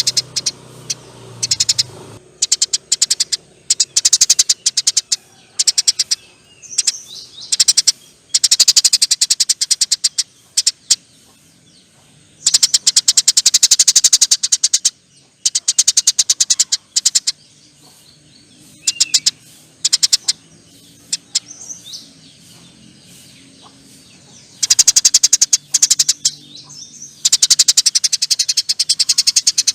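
Eurasian tree sparrow chattering: long, very rapid trains of high, sharp chirps, each run lasting a second or two and repeated again and again with short pauses between.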